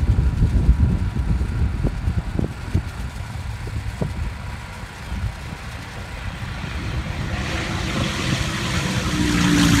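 Wind rumble on the microphone, then a car running at speed down the runway, its engine and tyre noise building over the last two seconds as it draws near.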